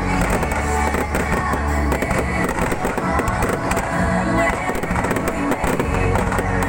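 Fireworks banging and crackling in quick succession over loud music.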